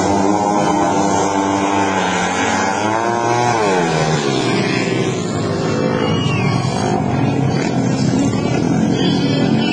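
Junior speedway motorcycles racing on a dirt track, their engines revving hard. The engine note climbs and then drops sharply about three to four seconds in, then carries on as a rougher, lower drone.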